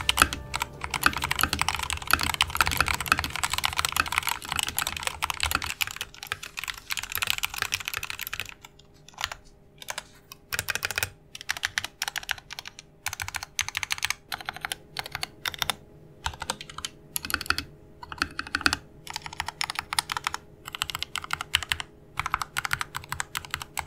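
Typing on a 60% RK-68 mechanical keyboard with lubed Kailh linear red switches: rapid, continuous keystrokes for about eight seconds, then shorter bursts of clicks with brief pauses between them.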